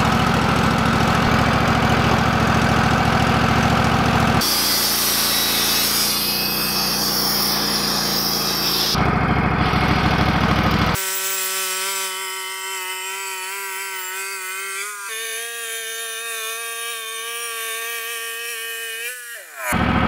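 Wood-Mizer LT15 portable bandsaw mill running, its engine steady and the band blade sawing through a log, the cut sounding brighter for several seconds in the middle. About eleven seconds in the sound turns into a quieter, steady whine of several pitches that steps in pitch midway and sweeps upward just before the end.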